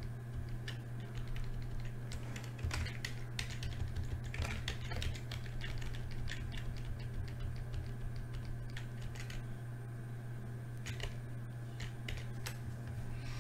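Irregular clicking and tapping of a computer keyboard and mouse while a spreadsheet is edited, over a steady low hum.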